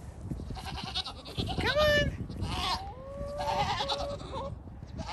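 Pygmy goats bleating, a few separate calls, the loudest about two seconds in; they are calling to be fed.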